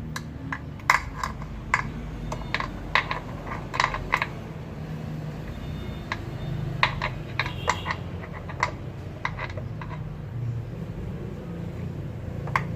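Irregular sharp metallic clicks and taps from handling the spark plug pulled from the misfiring cylinder 1 while checking it for spark, over a low steady engine hum.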